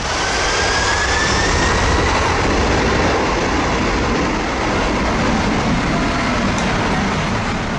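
Boeing 747's four jet engines at takeoff power behind the beach: a loud, steady jet-blast roar, with a faint rising whine in the first couple of seconds as the engines spool up.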